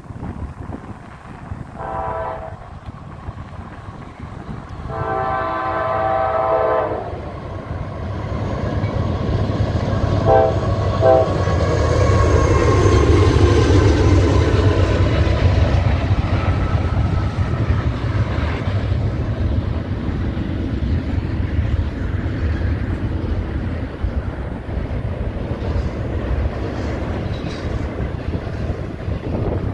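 Norfolk Southern diesel locomotives' air horn sounding a short blast, a long blast, then two quick short blasts as the freight train approaches. The locomotives' diesel engines then go by close, loudest about twelve to fifteen seconds in, followed by the steady rumble and clickety-clack of double-stack intermodal cars rolling past.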